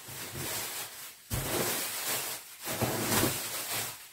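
Bubble wrap and plastic bag packing rustling and crinkling as it is handled and pulled out of a box, in several bursts.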